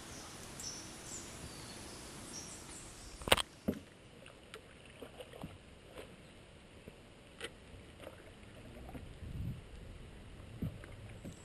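Quiet outdoor ambience with short high chirps in the first few seconds, then a sharp click about three seconds in. After it comes the faint sound of a small boat on a river, with scattered light knocks.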